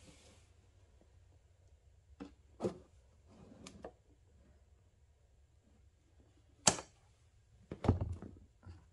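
Scattered clicks and knocks of hand tools being handled: a few light clicks, then a sharp click and a heavier knock near the end.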